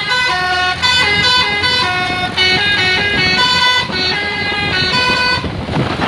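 Tour bus's Basuri 'telolet' musical horn playing a full tune of changing notes, which stops about five and a half seconds in. The bus's engine runs underneath, and engine and road noise carry on after the tune ends.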